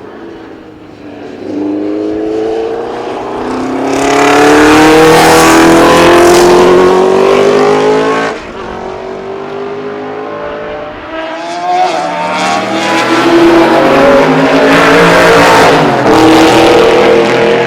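Unsilenced racing car engine, very loud, revs climbing in steps through several upshifts as the car accelerates. The sound cuts back sharply about eight seconds in, then rises through the gears again.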